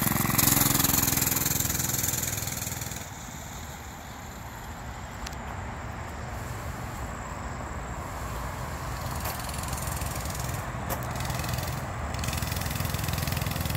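Mega Moto 105cc mini bike's small four-stroke single-cylinder engine running under a child rider. It is loudest as it pulls away in the first few seconds, drops off after about three seconds as it heads across the yard, then grows a little louder again near the end as it comes back.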